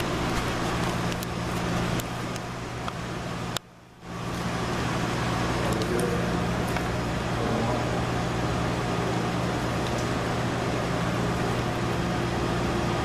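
Steady electrical hum and room noise of a shop's equipment, with a few faint clicks. The sound drops away abruptly for about half a second around four seconds in, then returns.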